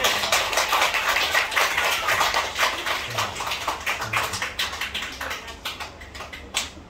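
Congregation applauding: a dense patter of clapping that thins out and dies away after about six seconds, with a couple of last single claps near the end.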